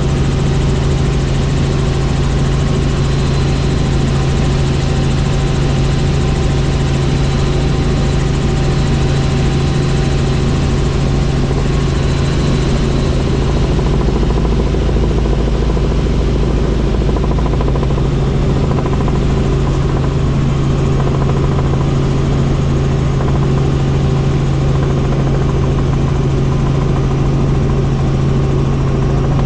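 Helicopter in flight: the steady, unbroken drone of its rotor and turbine engine, with a strong low hum and a faint higher whine.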